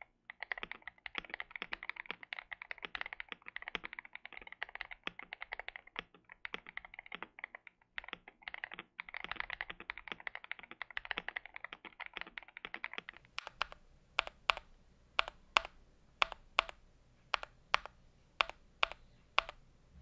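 Typing on a mechanical keyboard with stock, unlubed Durock POM linear switches in a modded KBD67: a run of fast continuous typing, then, about two-thirds through, slower single key presses at about two a second. The switches have a clacky sound with spring ping, which the reviewer hears as bad and traces to the leaf or springs in some of the switches.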